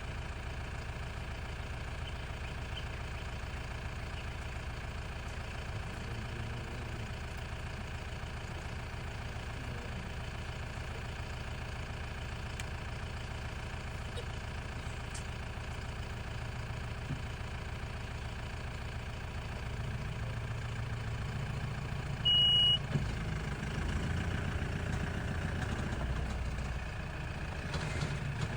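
Safari vehicle's engine idling steadily, its low rumble growing a little heavier in the last several seconds. About three quarters of the way through, a single short high-pitched beep sounds.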